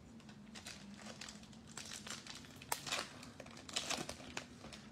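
Foil wrapper of a Panini Illusions basketball card pack being crinkled and torn open by hand: a run of faint crackling rustles, with a few sharper crinkles near the middle.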